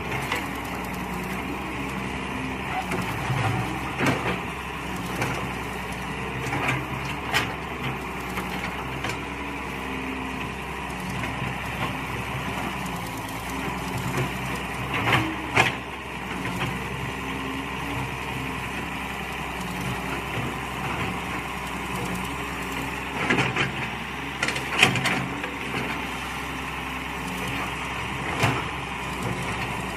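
Mini excavator engine running steadily under digging work, with clusters of sharp knocks and clanks now and then, loudest about halfway through and again near the end.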